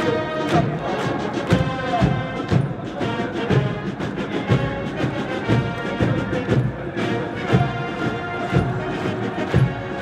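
Military brass band playing a march, with a steady drum beat about twice a second.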